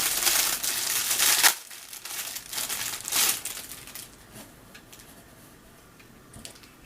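Crinkly packaging being handled and unwrapped, loudest in the first second and a half, with two more rustles about two and three seconds in, then dying down to faint handling noise.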